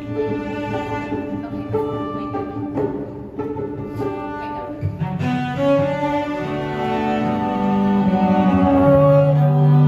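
String quartet playing a slow bridal processional: sustained bowed chords with a strong cello line. About halfway through the texture fills out with lower notes and grows louder.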